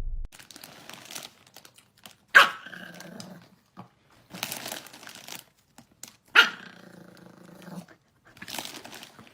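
Dog barking and growling: two loud sharp barks, about two and a half and six and a half seconds in, each running on into a drawn-out growly tail, with quieter scuffling sounds between.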